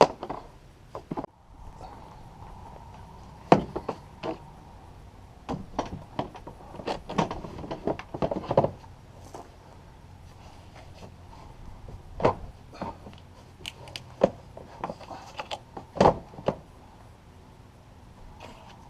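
Irregular knocks, clicks and thumps of parts being handled and fitted during an air filter change on a truck's air intake, with a sharp knock about three and a half seconds in and others scattered throughout.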